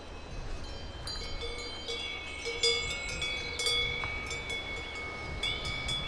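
Small metal bells jingling and ringing irregularly, with several sustained ringing tones, over a steady low rumble.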